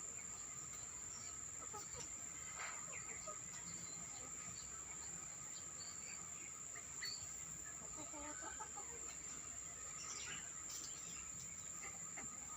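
Free-range farm chickens clucking on and off, with scattered chirps from small birds, over a steady high-pitched hum.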